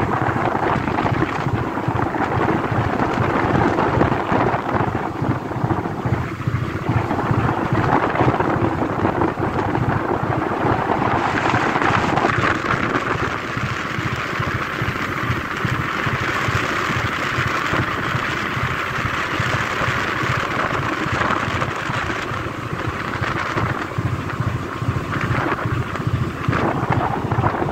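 Wind buffeting the microphone over the steady low rumble of a fishing trawler under way, with the rush of choppy sea.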